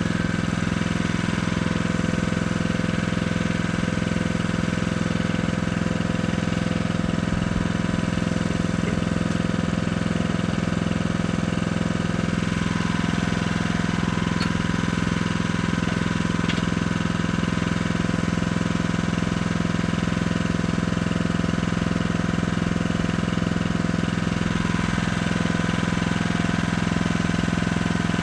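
Engine of a Jansen walking mini excavator running at a steady speed: an even, constant hum with no revving.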